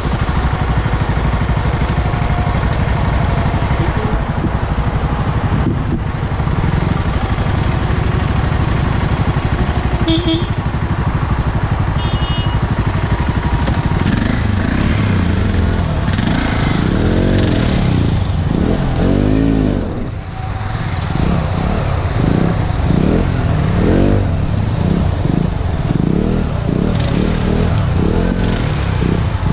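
Motorcycle engine running steadily at idle, then revving up and down repeatedly from about halfway through as the bike rides off, its pitch rising and falling.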